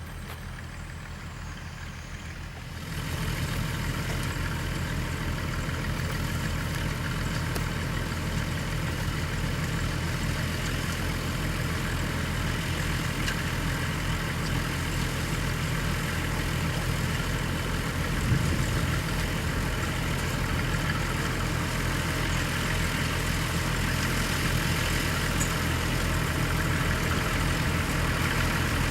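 Farm tractor engine running steadily during potato harvesting, getting louder about three seconds in.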